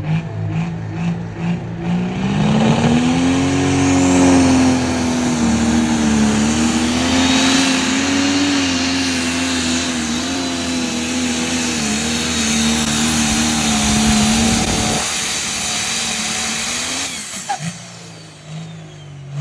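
Diesel pulling tractor at full throttle hauling a sled down the pull track: a loud, steady engine note whose pitch wavers up and down for about fifteen seconds, then drops away. A nearby engine idles with a pulsing beat at the start and again near the end.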